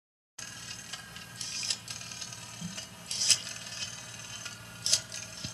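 Dead silence for a moment, then quiet room noise with a low steady hum and hiss, broken by a few soft, brief rustling clicks.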